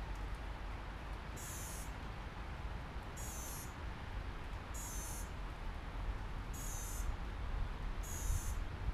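A high-pitched electronic beeper sounding five short, evenly spaced beeps, about one every second and a half, over a steady hiss and low rumble.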